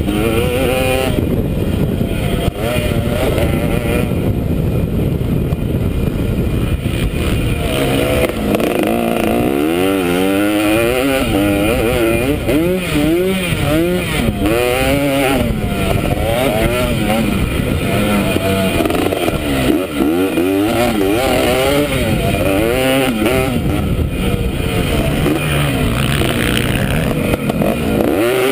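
Motocross dirt bike engine revving hard and easing off again and again through gear changes, heard from the rider's helmet camera.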